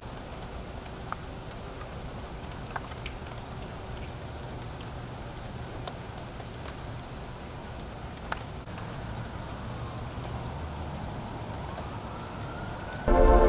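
Steady heavy rain falling on wet pavement, with scattered sharp drip clicks close by and a low steady rumble of a car or traffic. Loud music cuts in suddenly near the end.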